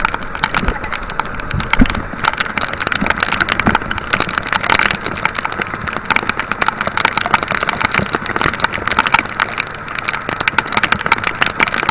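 Heavy rain pelting the sea surface and a small wooden outrigger boat, a dense steady patter of drop impacts, over a steady drone from the moving boat's engine.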